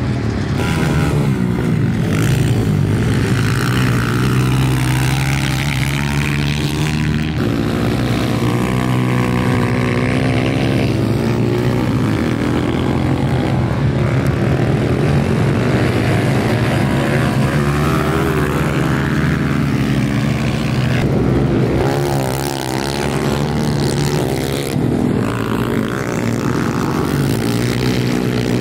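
Small single-cylinder four-stroke pit bike engines running on a dirt track, revving up and down as the bikes ride past, with the sound changing abruptly a few times.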